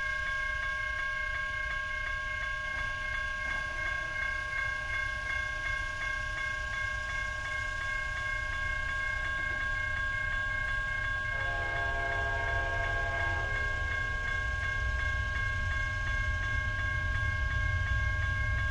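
Railroad crossing warning bell ringing steadily at about four dings a second, while an approaching Amtrak locomotive's horn sounds one chord for about two seconds, a little past the middle. A low rumble builds toward the end.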